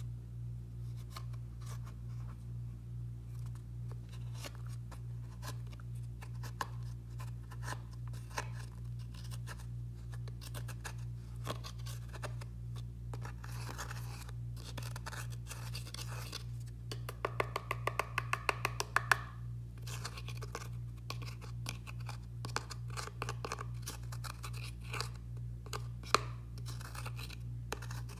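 A small tool scratching and scraping pressed eyeshadow out of the pans of a makeup palette: a string of small clicks and scrapes, with a fast run of scraping about two-thirds of the way through and one sharp tap near the end. A steady low hum runs underneath.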